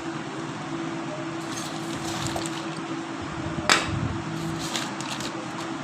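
Steady background hum with a few light clicks and one sharp knock nearly four seconds in.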